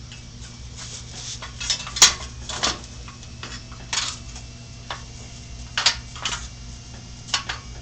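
Metal lathe parts clinking and knocking together as the tailstock piece is handled and fitted back onto the lathe: a scatter of irregular sharp clinks, the loudest about two seconds in.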